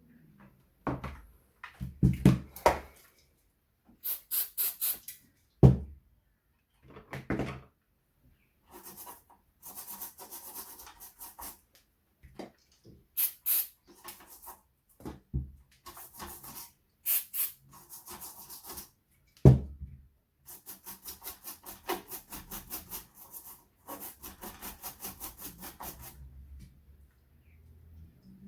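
Bench work on a circuit board: bursts of quick, rhythmic scraping or brushing strokes, about four to five a second, broken by pauses, with a few sharp knocks.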